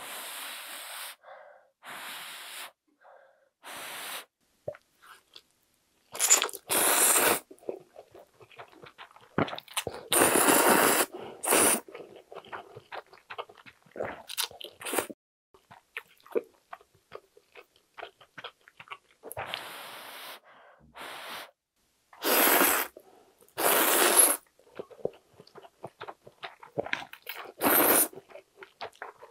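A person slurping instant ramen noodles, in repeated slurps each lasting up to about a second, with chewing in between.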